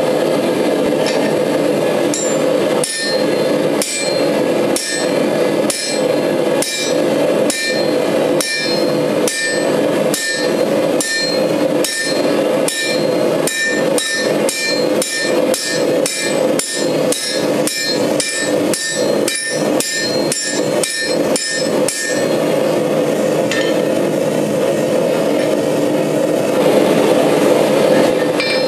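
Hand hammer blows on red-hot steel over an anvil, about two ringing strikes a second, driving a top tool into the bar. The hammering stops about two thirds of the way in and leaves a steady rushing noise, which runs under the whole stretch. Strikes start again at the very end.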